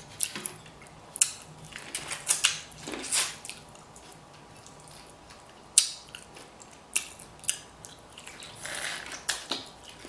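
Close-miked eating of a seafood boil: irregular sharp clicks and cracks with wet chewing and sucking sounds in between.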